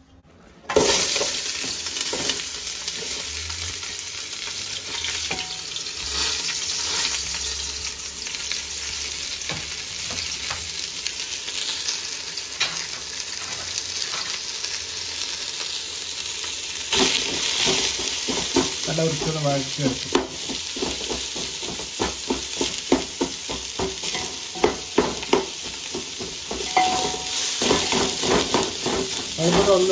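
Food frying in hot oil in a pan, a steady sizzle that starts abruptly about a second in. A spatula stirs and scrapes against the pan throughout, with more frequent clicks in the second half.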